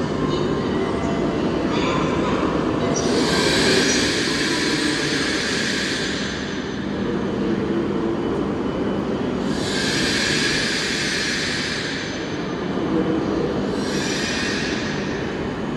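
E5 series Shinkansen train running slowly into the platform and coming to a stop: a steady low rumble, with three spells of high hissing from the train.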